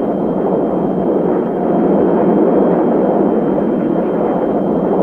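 Steady jet engine noise from a pair of Fairchild Republic A-10 Thunderbolt II attack aircraft flying over, driven by their twin General Electric TF34 turbofans.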